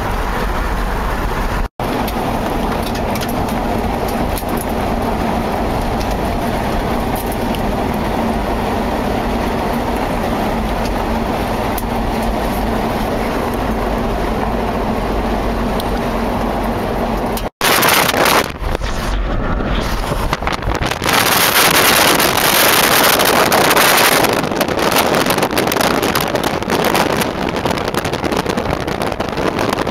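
Car driving at road speed, heard from inside the cabin: steady road and engine noise, broken by two short edit gaps. A little past halfway it gives way to louder, rougher wind rushing over the microphone outside the moving vehicle.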